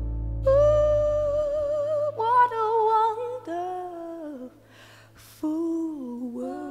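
Background music: a woman's voice humming a slow wordless melody in long held notes over soft accompaniment, pausing briefly about five seconds in.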